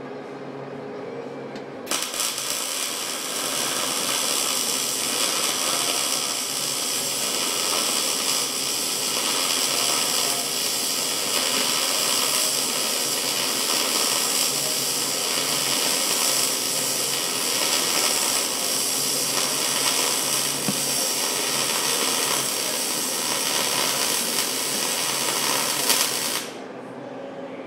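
MIG welding arc running in one continuous weld, a steady hiss that starts about two seconds in and cuts off near the end, over a steady low hum.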